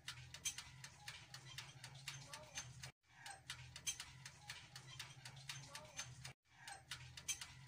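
Oven toaster running, with fast, slightly uneven ticking of the kind its wind-up timer makes and a low electrical hum under it. The sound cuts out for an instant twice, about three seconds in and again near the end.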